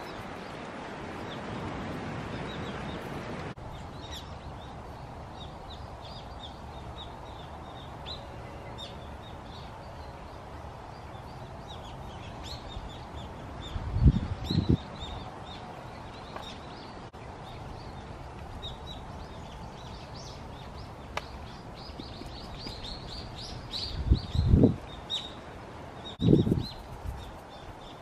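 Small birds chirping again and again in the background. A few dull low thumps come about halfway through and twice near the end as a raw whole chicken is handled on a wooden cutting board.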